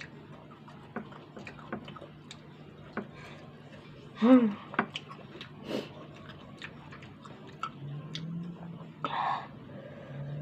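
A person eating crispy fried food by hand: irregular crunchy chewing clicks and fingers tapping the ceramic bowl, over a faint steady low hum. A brief vocal 'mm' about four seconds in is the loudest moment.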